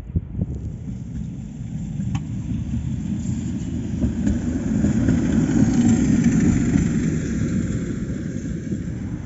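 Tatra T3 tram running past on snowy track: a steady low rumble that swells to its loudest about six seconds in and then eases.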